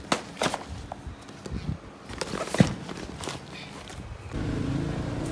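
Hands rummaging through a bag of food supplies: plastic tubs knocking together and a paper snack pouch rustling, with one sharp knock about two and a half seconds in. Near the end a steady car-cabin hum abruptly takes over.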